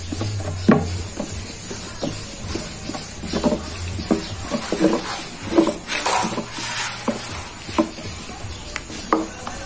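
Long thin wooden rolling pin (oklava) working yufka dough on a wooden board: irregular wooden knocks and clacks, about one a second, as the pin rolls and strikes the board, with a brief rush of noise about six seconds in.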